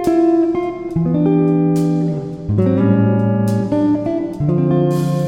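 Background music: plucked guitar playing chords and notes at an easy pace.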